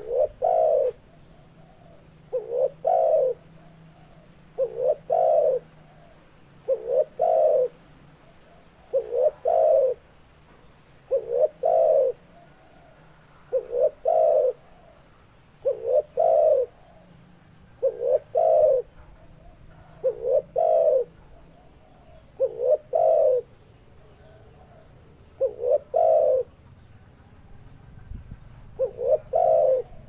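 Spotted dove cooing: phrases of two or three short notes running into a longer coo, repeated about every two seconds, with one slightly longer gap about three quarters of the way through.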